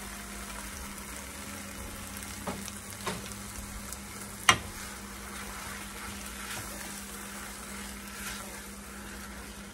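Corn, peppers and seasonings sizzling steadily as they toast in a hot pan on the stove, with three sharp knocks of a utensil on the pan, the loudest about four and a half seconds in.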